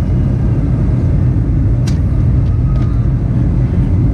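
Cabin noise of a Boeing 737-800 airliner in flight on approach: a steady low rumble of engine and airflow. A single sharp click sounds about two seconds in.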